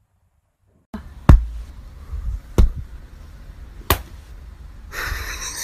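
A hand and a dog's paw slapping down on a padded stool: three sharp thumps about 1.3 seconds apart, after a second of silence. A steady hiss starts near the end.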